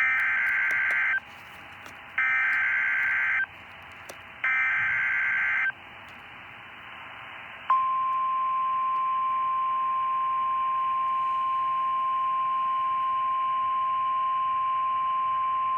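Emergency alert broadcast tones: three bursts of buzzy SAME digital header data, each about a second long and a second apart, then about eight seconds in a single steady alert tone begins and holds unchanged, the NOAA Weather Radio warning alarm that comes before a new warning is read out.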